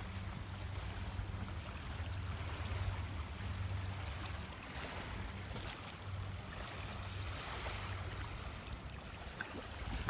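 Toyota HiAce minibus driving, its engine a steady low hum under road and wind noise, heard from inside the vehicle.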